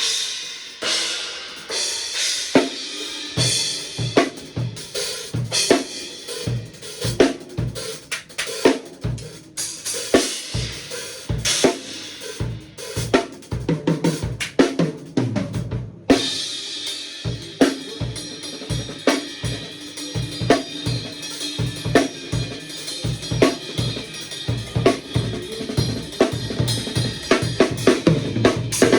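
Drum kit played freely, with kick and snare hits under crashes and rides on Omete cymbals, their wash ringing above the drums. The playing stops for a moment about 16 seconds in, then resumes with a fuller cymbal wash.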